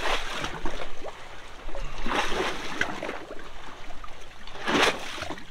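Shallow water lapping and splashing in irregular surges, three stronger ones about two seconds apart.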